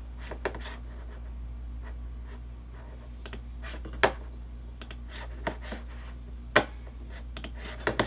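Room tone with a steady low hum, broken by scattered light clicks and taps from a computer keyboard and desk, the sharpest about four seconds in and again about six and a half seconds in.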